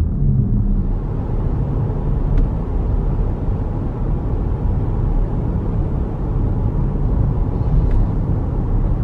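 Road and engine noise inside a moving car's cabin: a steady low rumble, with a couple of faint clicks.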